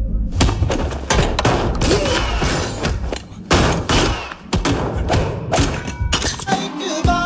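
Film fight sound effects: a rapid run of hard hits and pistol shots during a close-quarters struggle, over a music score.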